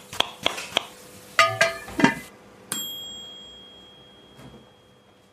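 Kitchen sound-effect sign-off: evenly spaced chopping strikes, about three a second, stop about a second in; a couple of clattering clinks follow, then a single bright ding that rings out and slowly fades.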